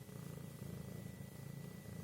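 Domestic cat purring: a low, steady, fast-pulsing rumble, the contented purr of a cat that wants affection.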